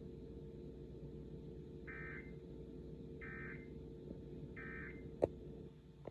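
Three short, buzzy EAS/SAME digital data squawks about a second apart, the end-of-message signal of a NOAA Weather Radio alert, over a steady low radio hum. A sharp click comes near the end.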